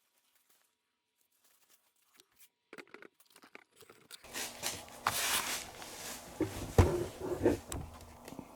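Near silence for about four seconds, then scattered clicks, knocks and rustling, like objects being handled on a workbench, with the loudest knock near the end.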